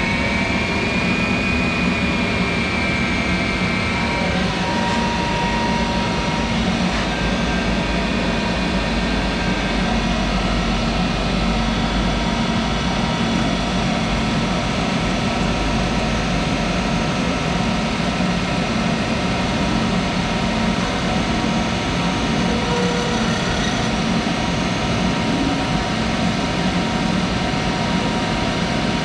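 Monarch 10ee lathe running on its motor-generator DC drive: a steady mechanical hum with several whining tones over it. One whine rises in pitch in the first couple of seconds, then the running holds steady.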